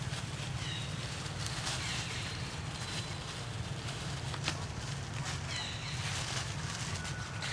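Macaques scuffling and play-wrestling in dry leaf litter, with scattered leaf crackles and two short high chirps, about a second in and again near six seconds, over a steady low hum.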